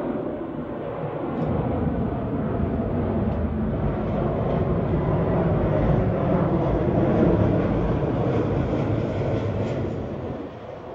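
Rumble of a passing vehicle, swelling to a peak about two-thirds of the way in and fading away near the end.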